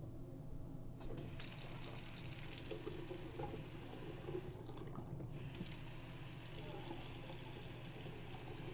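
Water running from a newly installed Hansgrohe lavatory faucet into the sink basin. The flow is turned on about a second in, breaks off briefly a few seconds later, then runs again.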